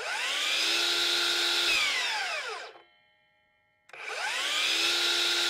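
DeWalt FlexVolt 12-inch sliding miter saw's brushless motor and 60-tooth blade spinning up with a rising whine, running briefly, then dropping in pitch and stopping in about half a second under the electric blade brake. About a second later it starts up again and is still running at the end.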